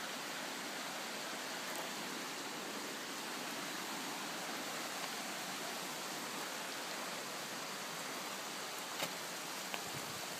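Steady rush of a flowing mountain stream, with a couple of faint clicks about nine seconds in.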